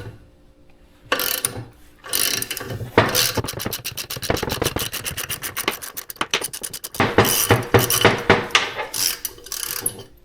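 Ratchet wrench clicking fast and steadily as it turns nuts welded onto broken-off bolts in an LS engine's aluminum cylinder head, backing the bolts out; a short scrape of metal tools comes just before.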